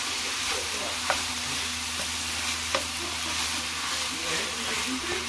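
Scrambled eggs with sliced hot dogs and bologna sizzling in a nonstick skillet while a wooden spoon stirs and scrapes through them, with a steady frying hiss and two sharp clicks about a second and a half apart.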